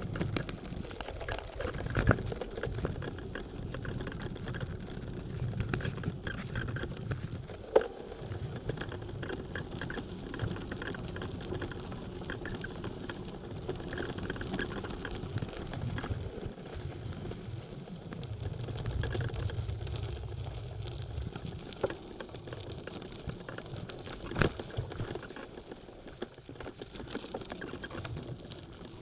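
Bicycle tyres rolling over a gravel and dirt path, a steady crunching rumble with the bike rattling, broken by a few sharp knocks from bumps.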